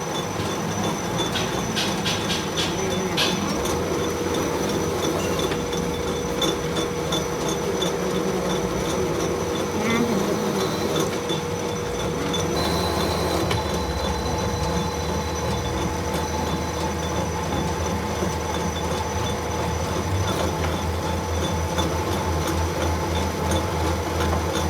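Workshop machinery running steadily, with a constant whine and hum and a few light clicks in the first few seconds.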